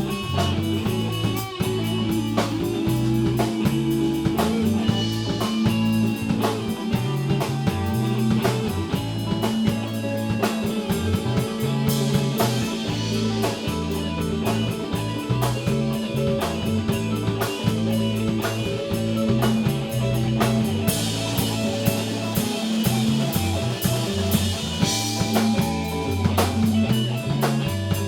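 Instrumental rock band section: electric guitars, bass and drum kit playing with a steady beat.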